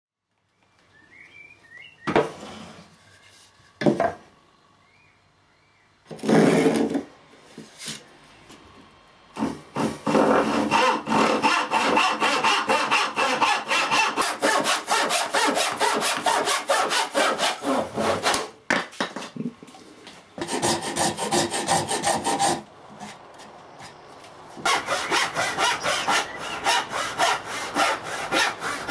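Hand tenon saw cutting wood in fast, even push-and-pull strokes, in two long runs with a pause between. Two sharp knocks and a short scrape come before the sawing starts.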